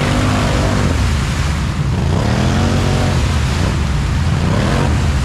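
ATV engine running and revving, its pitch rising and falling a few times over a steady low rumble.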